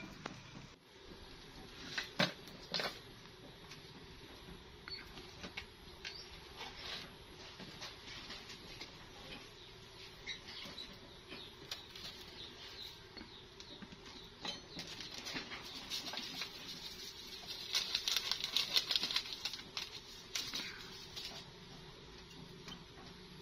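Hand food-preparation sounds: scattered light taps, clicks and scrapes of a knife and spoon against dishes as ingredients are handled and salt is sprinkled over fish in a plastic bowl, with a denser run of quick crackly taps about three-quarters of the way through.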